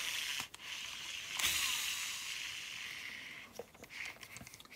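Spool of a Shimano Exsence DC baitcasting reel spinning freely, a high hissing whirr that fades away as it spins down, followed by a few light clicks from the reel.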